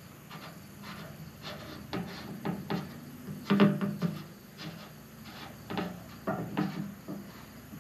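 Hand tool working the fasteners on a fuel cell's sump ring: a string of irregular clicks, knocks and scrapes, loudest a little past the middle.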